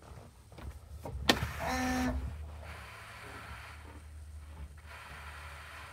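Ignition of a 2005 International 7300 medium-duty truck switched to on: a sharp click about a second in, then a short electric buzz lasting under a second, then a steady electric whir from the truck's systems powering up.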